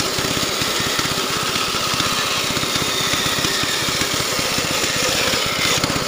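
Band saw cutting through a thick wooden block, running steadily with a fast, even low pulsing throb under the cutting noise.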